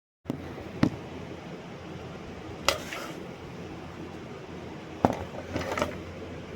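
Steady low hum and hiss with a few sharp clicks or knocks scattered through it, two of them close together near the end.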